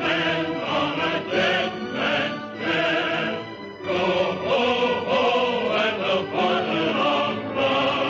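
Music with a choir of voices singing.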